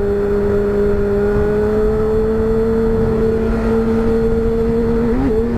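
Honda Hornet's inline-four motorcycle engine with an aftermarket sport exhaust tip, running under steady throttle while riding, not yet at high revs. Its pitch rises slowly over the first two or three seconds, then holds steady, with a brief wobble near the end.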